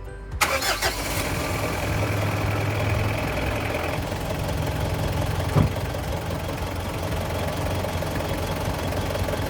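Diesel car engine starting and catching within about a second, after new glow plugs have been fitted to cure hard starting, then running a little faster for a few seconds before settling to a steady idle. One short knock about halfway through.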